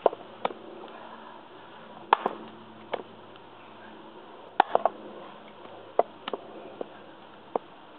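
Small Prandi Yankee axe chopping into a knotty beechwood log on a chopping block: about a dozen sharp chops at an uneven pace, some coming in quick pairs or threes.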